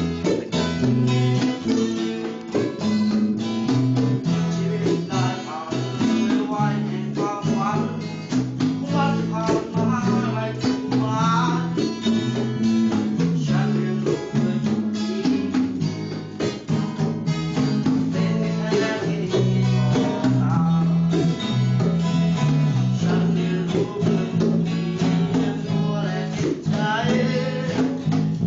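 Music: strummed acoustic guitar over a moving bass line, with a voice singing in places.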